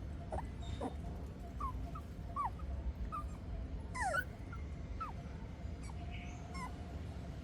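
Newborn puppies crying in a scattered run of about ten short, high squeaks that fall in pitch, over a steady low rumble.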